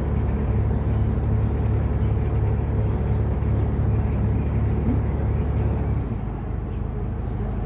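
Tour boat's engine running with a steady low hum, dropping in level about six seconds in.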